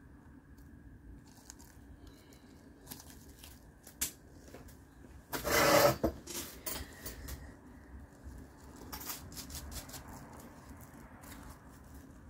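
Plastic bubble wrap crinkling and rustling as it is handled, with scattered light clicks and one louder rustle of under a second a little past halfway.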